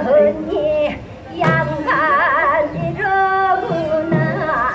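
Korean Gyeonggi folk singing: a singer holds long notes with a wide, wavering vibrato. Low drum strokes fall underneath at an uneven pace.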